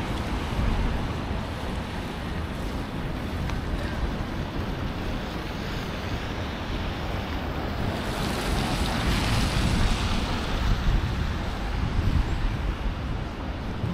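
Wind buffeting the microphone as a steady rough rumble, swelling louder and brighter about two-thirds of the way through.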